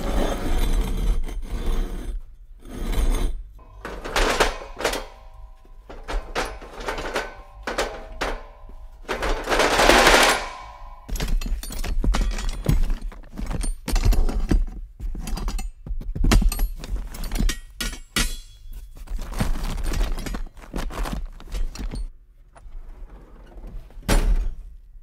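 Metal brackets and hardware being rummaged, knocked together and dropped in a cardboard box: a busy run of clanks, thunks and rattles with some metallic ringing, and a dense scraping burst about ten seconds in.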